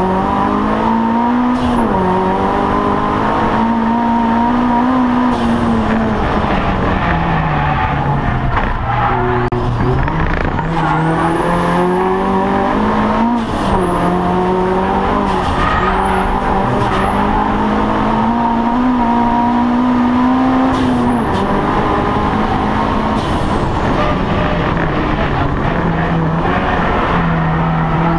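Racing Audi TT's engine heard from inside the cabin at race speed, its pitch climbing under acceleration and dropping sharply at each gear change, then falling away as it slows and climbing again. A high whine rises and falls along with it.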